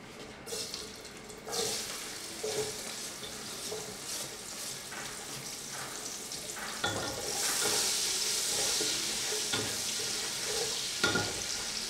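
Chopped onions frying in a nonstick pot as they are tipped in and stirred with a slotted spatula. The sizzle starts a second or two in, builds, and is loudest in the second half, with a couple of knocks of the spatula against the pot.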